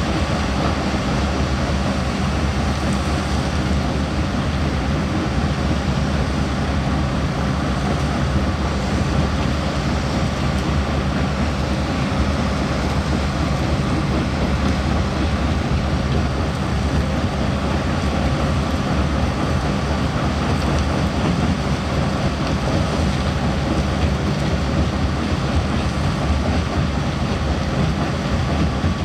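Heavy construction machine's diesel engine running with a steady low drone under a dense, even noise, with no breaks or sharp impacts.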